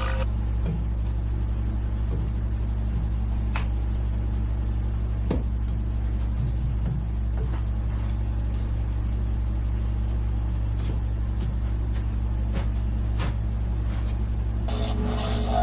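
A steady low machine hum with a few faint ticks and knocks. Near the end, the rasp of a gouge cutting the spinning wood blank on the lathe starts again.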